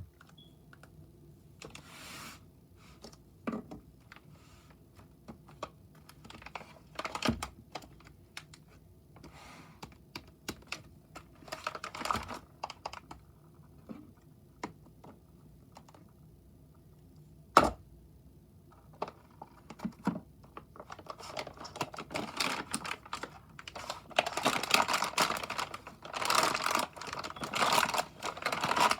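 Packaging of a 3D printer filament spool being handled and opened: scattered light taps and clicks, one sharp knock a little past halfway, then steady rustling and crinkling from about 21 seconds on.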